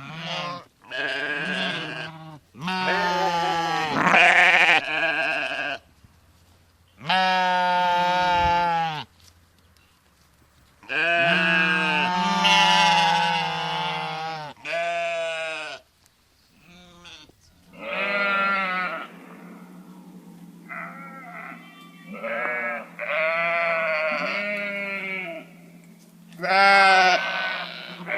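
Sheep bleating: a string of wavering baas, some long and drawn out, some short, one after another with short pauses. About two-thirds of the way through the background changes and the calls come shorter and closer together.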